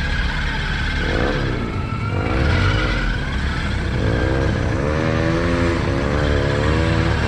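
Off-road 4x4's engine running under load, the revs rising and falling repeatedly in the second half as the throttle is worked to keep traction on the trail.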